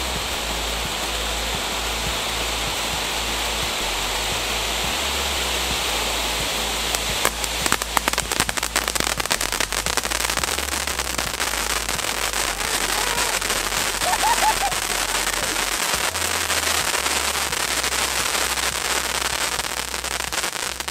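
Four Jorge crackling volcano fountains burning together, a steady loud hiss of spraying sparks. From about seven seconds in, dense crackling joins the hiss as the crackling effect starts.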